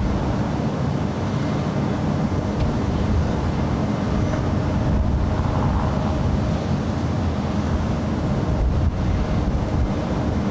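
Gusty wind buffeting the microphone: a steady, heavy low rumble of wind noise.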